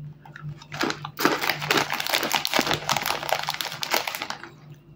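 Metallised plastic snack bag crinkling as hands open it and reach in for a cheese puff, for about three seconds starting about a second in.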